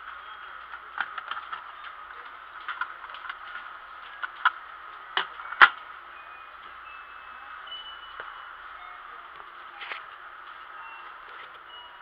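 Scattered plastic clicks and knocks from hands handling remote-control toy cars and a controller, the loudest two about five and a half seconds in, over a steady hiss of shop background noise.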